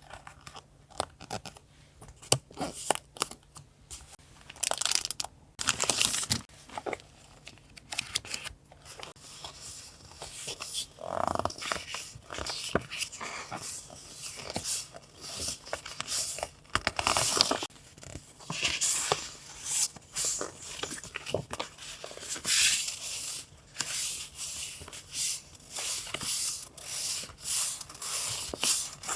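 Paper and packaging handled close up: irregular rustling, crinkling and tearing, with small taps and clicks.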